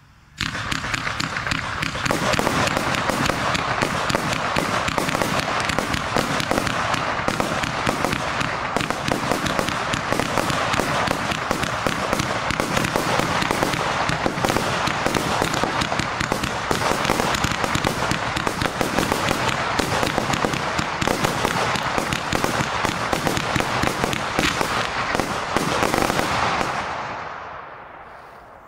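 A 100-shot firework cake firing rapid shots, each a red mine tail breaking into a silver crossette. The dense string of shots starts about half a second in, runs for about 26 seconds, then fades away near the end.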